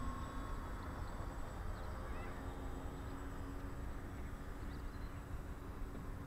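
Wind buffeting the microphone over the faint, steady drone of a radio-controlled Short S.23 Empire flying boat model's motors as it runs across the water on its take-off run.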